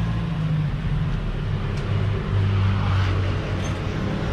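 Road traffic: a motor vehicle's engine running close by, a steady low drone.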